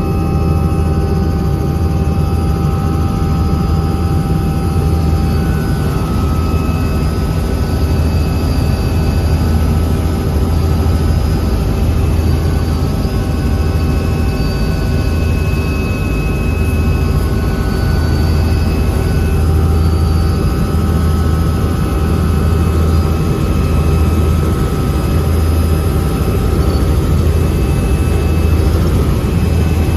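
Robinson R66 turbine helicopter running steadily: a low, pulsing throb with steady whining tones above it.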